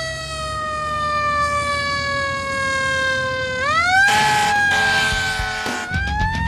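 A fire-engine siren wailing, its pitch sliding slowly down and then climbing quickly, twice. About four seconds in, loud crashing noise joins it, with rhythmic hits near the end as heavy music begins.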